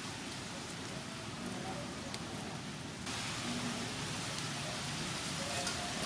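Steady hiss of outdoor background noise that grows a little louder about three seconds in, with a few faint ticks.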